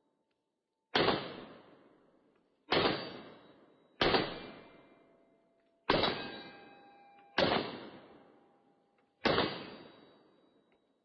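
Six shots from a Canik TP9SF pistol, spaced about one and a half to two seconds apart. Each shot is followed by a fading echo and a metallic ring, the sound of steel target plates being hit.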